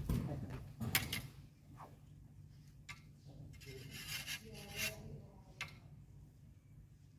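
Smallsword blades clicking and scraping against each other as two fencers spar: a scattering of sharp clicks, the loudest in the first second, with light rubbing in between.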